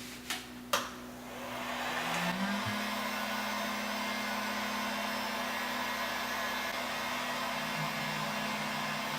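Two light clicks, then a heat gun starts up, its rush of air building over about a second and then running steadily with a low hum. It is heating a hard-line water-cooling tube to soften it for re-bending.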